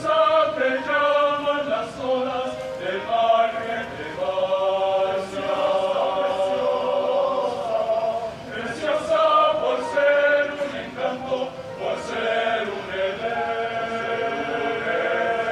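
Men's choir singing in harmony, sustained chords in phrases a few seconds long with short breaks between them.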